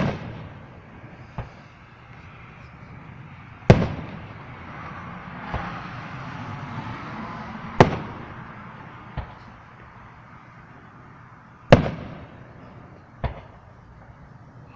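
Fireworks bursting overhead: four loud bangs about four seconds apart, with fainter pops between them, each bang trailing off in an echo.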